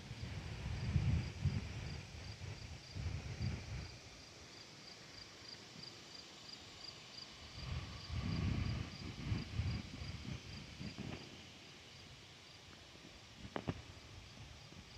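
A cricket chirping steadily in the farm's outdoor ambience, about three short high chirps a second, over bursts of low rumble that come and go; a sharp click near the end.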